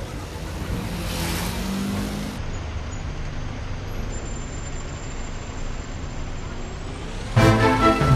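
Road traffic noise of cars and buses in slow-moving street traffic, with low engine hum and a brief hiss about a second in. Loud background music cuts in near the end.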